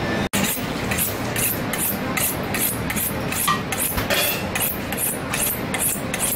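Chef's knife being drawn along a sharpening steel in quick, even strokes, about two or three a second, each a short high scrape, over a steady low kitchen hum.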